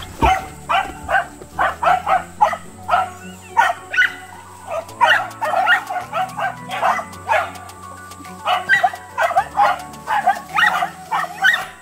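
Corgis barking in a quick, continuous run of short, sharp barks, two or three a second, over steady background music.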